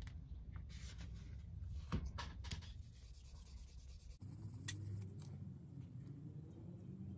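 A foam-backed sanding pad rubbing the small clear green plastic window piece of a Lesney Matchbox TV Service Van, wet-polishing it. It makes soft scratchy strokes, a few sharper ones in the first three seconds, over a low steady hum.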